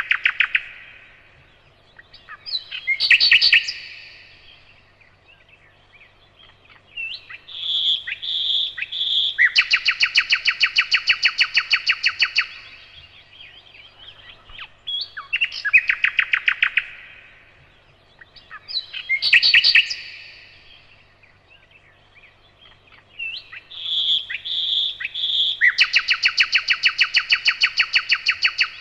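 Nightingale singing in separate phrases with pauses between them. Twice, about 8 s in and again near the end, a phrase opens with a few clear whistled notes and runs into a rapid rattling trill about three seconds long.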